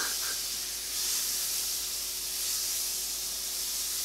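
Pancake batter sizzling in a hot frying pan on a gas stove: a steady high hiss.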